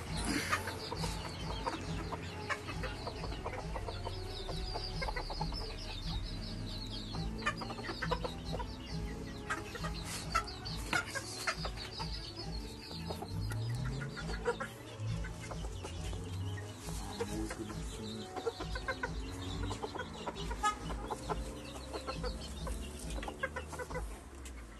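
Chickens clucking, with scattered scratching and scuffing as a hen digs in sandy dirt.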